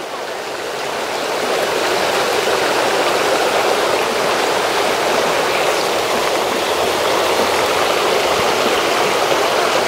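Steady rushing noise like running water. It grows a little over the first two seconds, then holds level.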